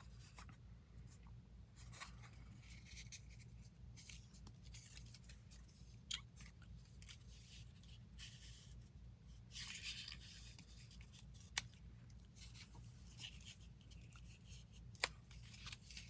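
Paper cutouts being handled and slid about on a cutting mat: faint rustling with a few sharp soft taps, over a low steady hum.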